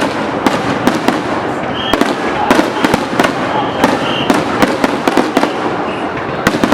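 Fireworks bursting in quick succession: an irregular run of sharp bangs and crackles, several a second, over a steady background hubbub.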